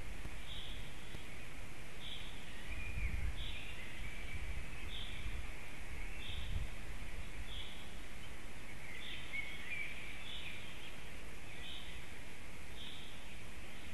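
A small songbird repeats one short high note about every second and a half, over fainter trilling song from other birds. Low wind rumble on the microphone swells twice in the first half.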